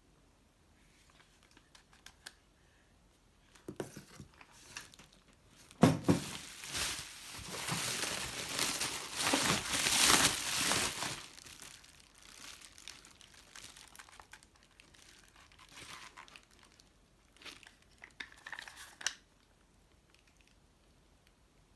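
Packing material being crumpled, crinkled and torn by hand while unwrapping a package, loudest in a stretch of several seconds near the middle, then lighter rustling that stops near the end.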